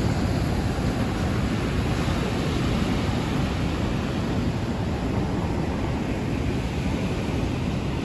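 Sea surf breaking on a beach in a storm: a steady wash of noise with a deep rumble underneath.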